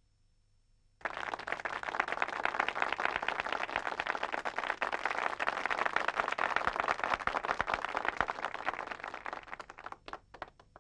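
Audience applause that starts suddenly about a second in, carries on as a dense crowd of claps, then dies away to a few last scattered claps near the end.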